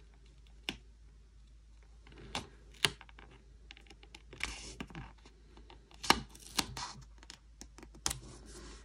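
Scattered light clicks and taps with a few brief paper rustles: a large paper sticker being handled, lined up and pressed onto a planner page.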